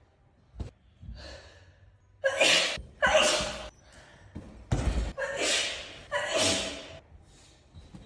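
A woman sneezing hard, about five loud sneezes in quick succession starting about two seconds in, with a gasping in-breath before them.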